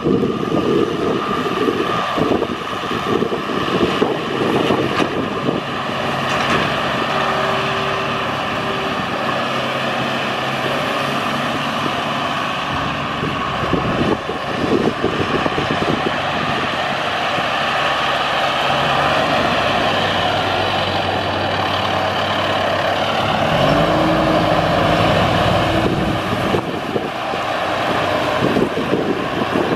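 John Deere tractor's diesel engine running steadily while working a rear-mounted snowblower that throws snow. About three-quarters of the way through, the engine revs rise and then hold.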